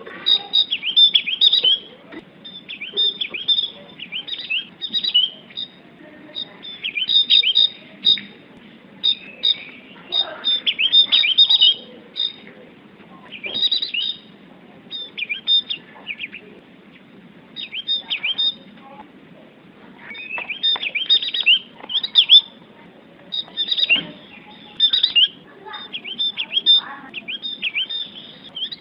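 Javan grey-throated white-eye singing persistently: bursts of quick, high chirping notes that sweep down in pitch, delivered in phrases of about a second with short pauses between them.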